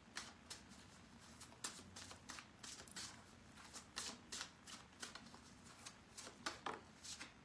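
A deck of oracle cards being shuffled by hand: a faint, irregular run of soft card flicks and slaps, several a second.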